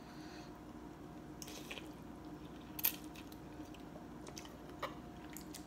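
A person eating rice noodle soup: quiet chewing and a few short slurps of noodles, over a faint steady hum.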